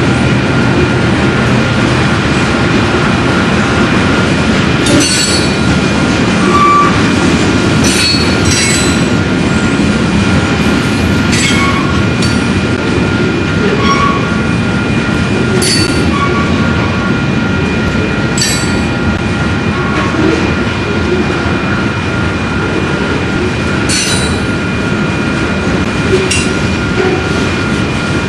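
Train rolling along the track: a steady rumble with a thin steady high squeal, short wheel squeals and a handful of sharp clacks at irregular intervals.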